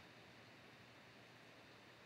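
Near silence: only the faint steady hiss of the recording's background.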